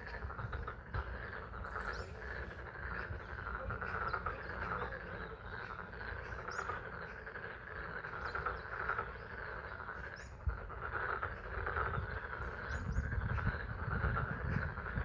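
Pond frogs calling in a dense, steady chorus in spring rain, with a low rumble underneath and a few short, high chirps.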